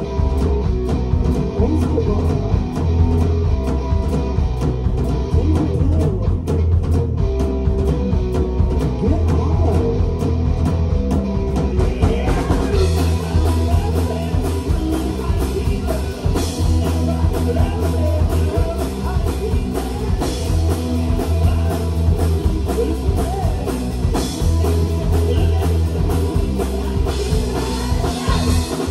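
Live rock band playing a song on guitar and drum kit, with some singing; the sound gets brighter and fuller about twelve seconds in.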